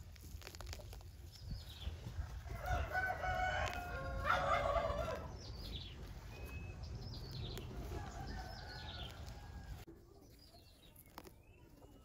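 A rooster crowing once, a long call of a few seconds, with small birds chirping around it. A low background rumble stops abruptly near the end.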